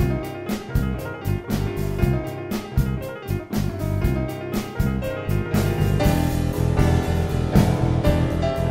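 Jazz-tango fusion trio playing: piano, bass and drum kit, with many sharp piano and drum attacks. About six seconds in the sound turns fuller and more sustained.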